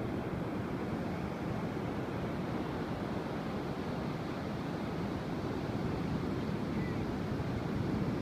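Ocean surf breaking in a steady, continuous rush along a wide sandy beach, with wind buffeting the microphone.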